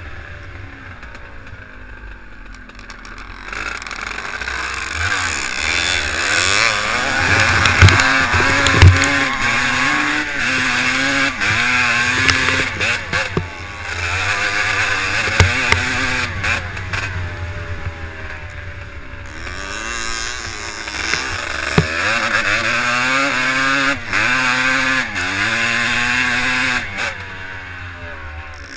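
Twinshock motocross bike's engine heard from a camera mounted on the bike, revving up and down again and again as it is ridden hard. It is quieter for the first few seconds and near the end. A few sharp knocks come through along the way.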